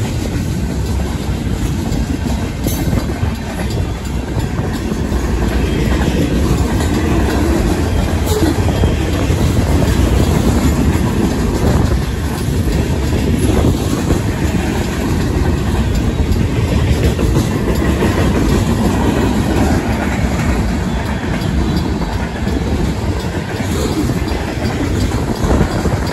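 Freight train cars rolling past at speed: a steady heavy rumble with the clickety-clack of steel wheels over the rails and crossing, while the crossing's warning bells keep ringing.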